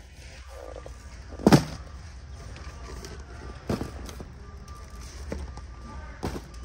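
Large cardboard cases of fruit snacks being handled and set down: three sharp thumps, the loudest about a second and a half in, with a softer knock between the last two, over a steady low hum.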